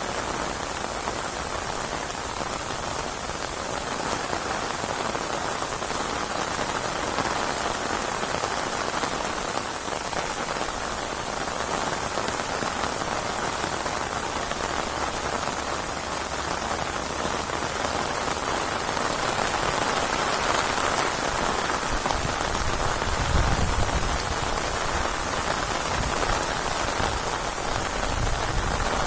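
Steady rainfall, a dense even hiss of drops; a low rumble joins in about three-quarters of the way through.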